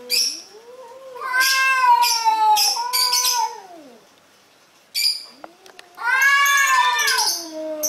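Domestic cats yowling at each other in a standoff: long, drawn-out caterwauls that rise and fall in pitch, with the loudest about a second in and again about six seconds in, and a short sharp sound in the lull between them.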